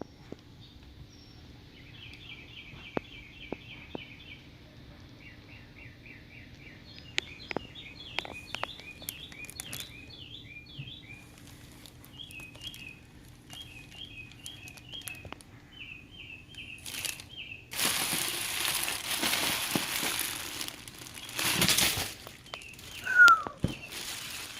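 Bird chirping in quick repeated runs of notes, then, about eighteen seconds in, a few seconds of crinkling and rustling, like packaging being handled, and a brief loud falling note near the end.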